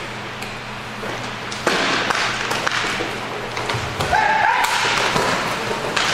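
Inline hockey play on a rink: scattered sharp taps and thuds of sticks and puck hitting the boards, over a noisy rink background that grows louder a little under two seconds in.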